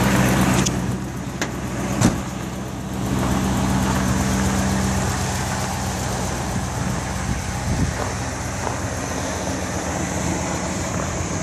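A 2000 Ford F-350's 5.4-litre V8 idling steadily on a cold engine just after a cold start in about 10°F weather. A single sharp knock sounds about two seconds in.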